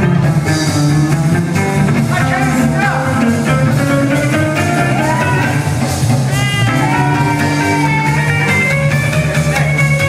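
Busker's electric guitar playing a rock tune, with a voice singing over it.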